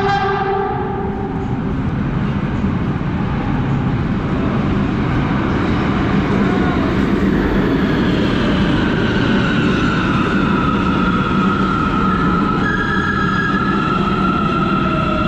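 Hyundai Rotem metro train entering an underground station: a short horn blast at the start, then a steady rumble of wheels on rail. From about halfway on, an electric traction-motor whine slowly falls in pitch as the train slows along the platform.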